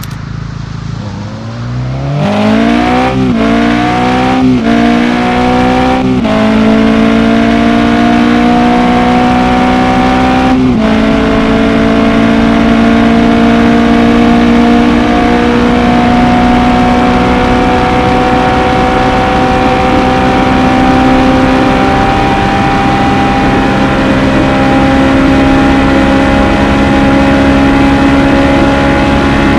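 Toyota AE86 Sprinter Trueno's stock 4A-GE 1.6-litre twin-cam four-cylinder accelerating hard from a standstill. The engine note climbs and drops back at four upshifts in the first eleven seconds, then rises slowly through a long pull in the top gear.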